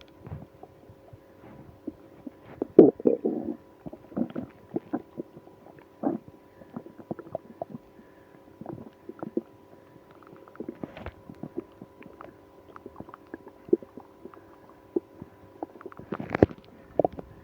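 Stomach and bowel gurgling and rumbling in a person with irritable bowel syndrome after drinking milk and prune juice: irregular short gurgles and pops, with the loudest rumbles about three seconds in and again near the end.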